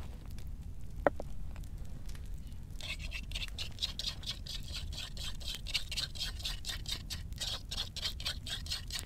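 A metal utensil scraping thick marinade out of a wooden bowl onto chunks of meat and pineapple, in rapid repeated scrapes from about three seconds in. One short metallic clink about a second in.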